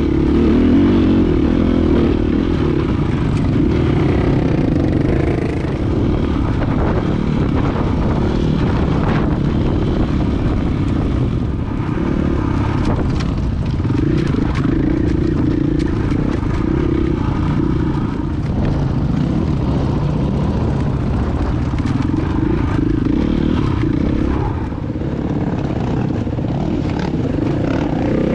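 Dirt bike engine running at low, changing revs while climbing over rough rock, heard close up from the bike itself, with scattered knocks and rattles.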